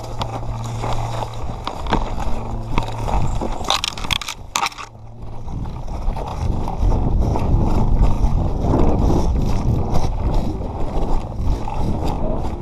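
Scraping and crunching footsteps on rough ground with gear rattling and handling noise close to the microphone, as a player moves off at the start of a game; it grows louder and busier about halfway through. A low steady hum sounds through the first few seconds, and a few sharp clicks come near the middle.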